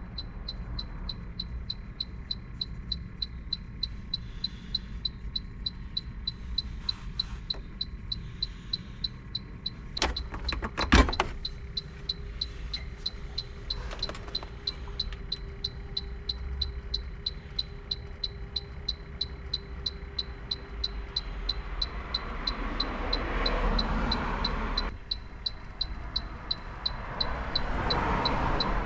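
A 2010 Mitsubishi Delica van's engine running, with an even light ticking about three times a second and a few sharp knocks about ten seconds in.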